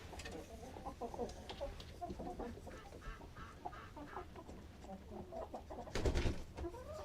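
Domestic hens clucking softly, many short calls overlapping. There is a brief rustling thump about six seconds in.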